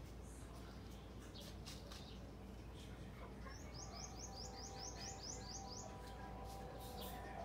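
Small songbird calling: scattered high chirps, with a quick run of about ten short downward-sliding chirps near the middle, over a faint low hum.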